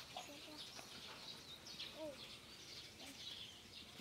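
Faint outdoor ambience of birds chirping, with a few short, faint pitched calls lower down.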